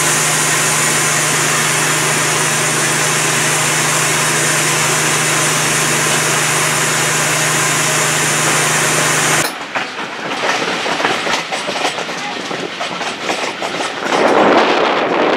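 Hunslet Austerity 0-6-0ST saddle tank steam locomotive standing with a loud, steady hiss of steam and a low hum beneath it. About nine and a half seconds in this cuts off abruptly to a train on the move, its wheels clicking over the rail joints, louder near the end.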